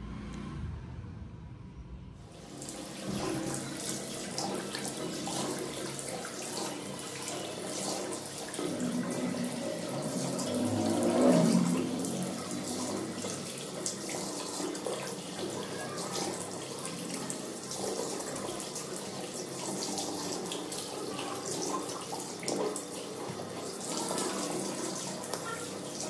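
Tap water running into a sink, with irregular splashing as a clay face pack is rinsed off by hand. It starts about two seconds in and is briefly louder near the middle.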